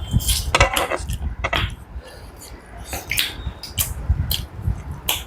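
Cutlery and dishes clinking during a meal: a run of short, irregular clicks and knocks.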